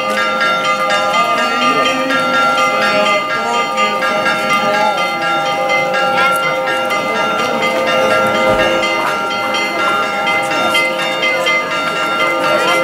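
Church bells ringing continuously, several tones overlapping, over the chatter of a crowd.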